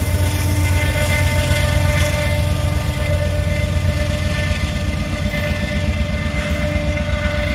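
Union Pacific diesel locomotive running by with a steady low rumble and an even engine drone.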